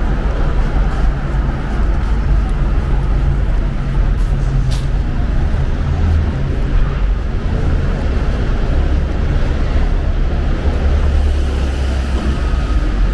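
Busy city-street road traffic: cars and buses running past in a steady, loud low rumble.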